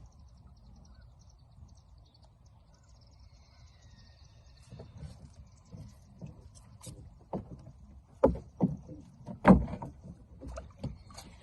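Magnet-fishing gear being handled in a boat: a series of scattered knocks and clunks, the two loudest about two-thirds of the way through.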